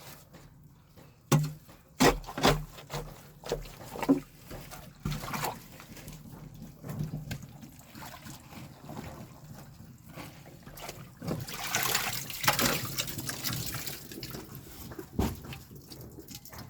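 Drain water trickling and splashing in a blocked drain being cleared. Scattered knocks and clunks come in the first few seconds, louder splashing around twelve seconds in, and one more sharp knock near the end.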